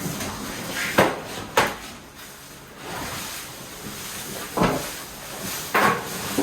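Objects being handled, with four sharp knocks or clunks: one about a second in, another soon after, and two more near the end, with faint rustling between, like a cupboard door or drawer being opened and shut.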